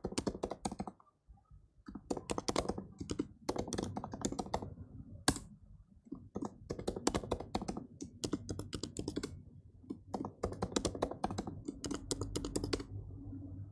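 Typing on a computer keyboard, in quick runs of keystrokes with short pauses between them, and one sharper single key press about five seconds in. The typing stops shortly before the end.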